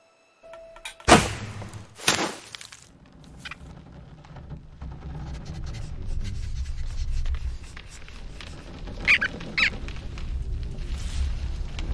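Cartoon sound effects: two loud, sudden hits about a second apart near the start, then a low rumbling bed that grows louder, with a couple of short high squeaks near the end.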